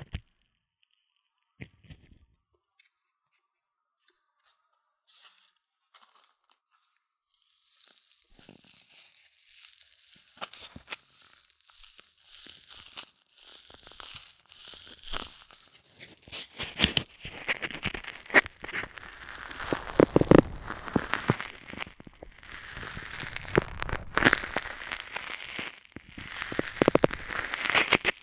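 Foam plastic crinkling and crackling as it is rubbed and crushed against a silicone ear microphone. It starts with a few faint clicks, then turns into continuous crackling about a quarter of the way in, growing louder in strong strokes over the second half.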